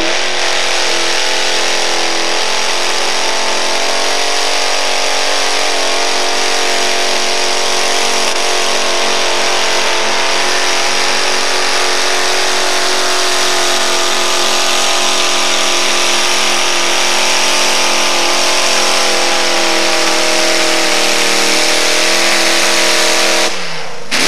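Supercharged engine of a modified four-wheel-drive pulling truck held at high revs under load through a pull, running hard and steady with little change in pitch. Near the end the engine sound drops away sharply as the pull ends.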